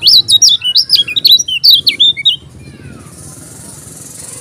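Caged kecial kuning, a small yellow white-eye, singing a fast, loud burst of high twittering notes that stops about two and a half seconds in.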